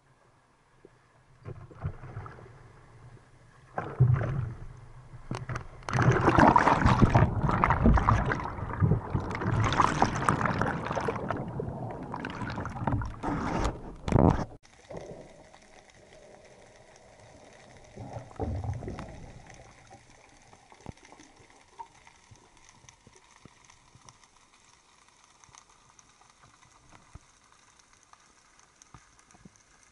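Seawater splashing and surf washing around the microphone at the waterline as a diver wades in, loud and choppy, cutting off abruptly about 14 seconds in. After that comes faint underwater hiss with scattered small ticks and one brief swell of water noise.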